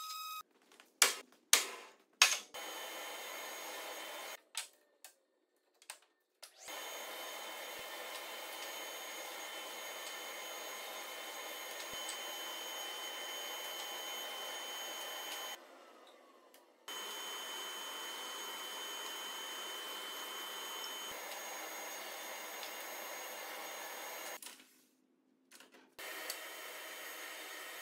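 Sliding table saw running with its dust extraction, a steady hiss with a faint high whine, starting and stopping abruptly several times. A few sharp wooden knocks, as of boards set down on the saw table, come near the start.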